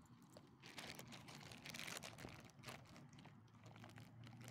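Faint chewing and crunching from small dogs eating leftover chicken off the ground, with a scatter of small clicks and crunches, busiest in the middle.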